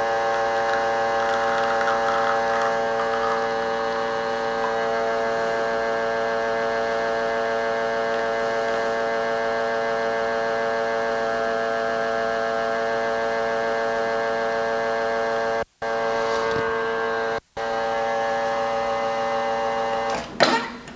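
Espresso machine pump running with a steady buzzing hum while a double shot is pulled. The sound cuts out very briefly twice, and the pump stops about a second before the end.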